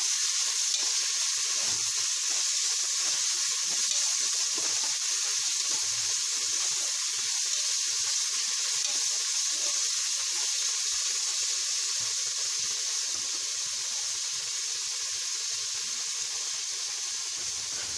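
Chopped onion, tomato and green chilli frying in oil in a heavy-bottomed pan, sizzling steadily and getting slightly quieter toward the end.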